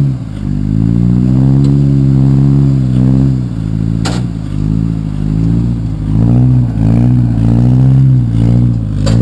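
1998 Suzuki Grand Vitara driving in four-wheel drive, its engine note rising and falling with the throttle. A sharp clunk comes about four seconds in and another near the end: the clunking that appears only in 4WD, its cause unknown to the owner.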